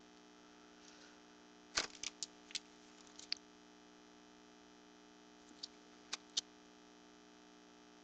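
Steady electrical hum with scattered sharp clicks: a quick cluster about two seconds in and three more around six seconds in.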